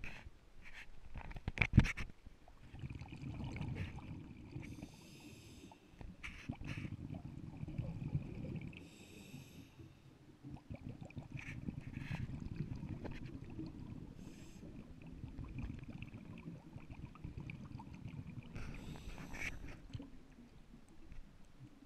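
Scuba diver breathing underwater through a regulator: short hissing inhalations alternating with long, low rumbling rushes of exhaled bubbles, muffled as heard through an underwater camera housing. A few sharp knocks about two seconds in are the loudest sounds.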